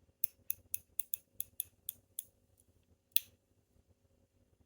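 Polished titanium-alloy slider fidget being slid back and forth: a quick run of about ten sharp clicks, then one louder click about three seconds in.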